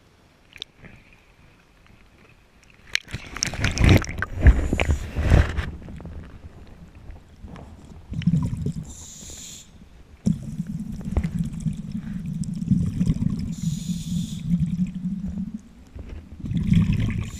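Splashing as divers go into the water, then scuba breathing heard underwater: rumbling, gurgling bubbles from exhaled breath and a high hiss from the regulator on each inhale, repeating.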